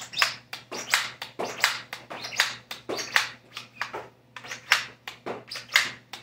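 Nerf foam-dart blaster being fired shot after shot, a rapid, irregular run of sharp clacks and pops about three a second, emptying its magazine.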